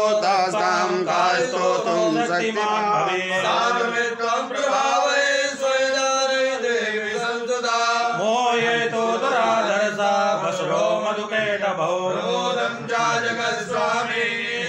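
Hindu priests chanting Sanskrit hymn verses in a continuous, melodic recitation.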